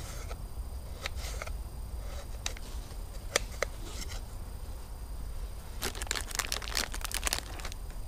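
Pine-wood campfire crackling, with scattered sharp pops and a quick flurry of them near the end.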